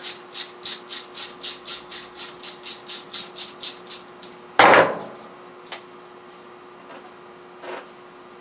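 Hand-tool work on a silicone radiator hose: quick, even rasping strokes, about four a second, for some four seconds, then stopping. A loud clunk follows, then a few light clicks.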